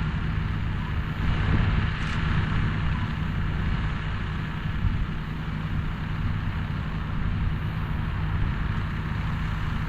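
A vehicle engine running steadily: a constant low rumble with a faint hum.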